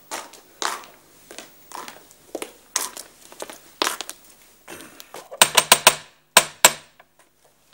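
Footsteps on a stone alley, then two quick bursts of sharp knocking with a metallic ring on a metal gate, the first a run of about five knocks and the second of about three.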